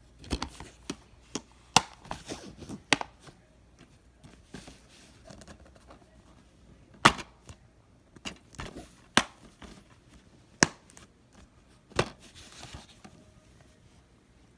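A series of irregular sharp clicks and knocks, a dozen or so spaced unevenly, with the loudest about two seconds in, near the middle and near the end.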